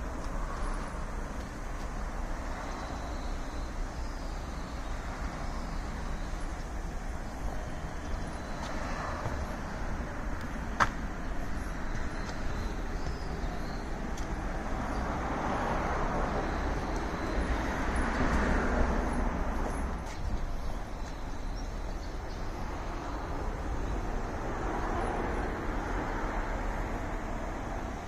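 Road traffic at a level crossing: vehicles passing one after another, each swelling and fading over a few seconds, with one sharp click about eleven seconds in.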